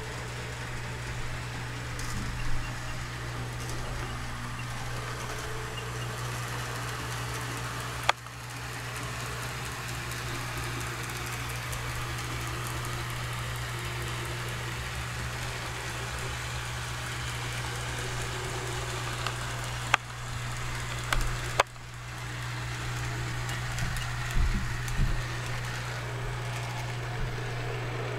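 HO-scale model gas-electric railcar running along the layout's track, with a steady low electric hum. A few sharp clicks sound, about eight seconds in and twice around twenty seconds.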